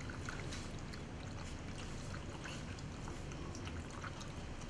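Puppies lapping and slurping wet bread mash soaked in broth from a metal bowl, a steady wet noise scattered with small smacks and clicks.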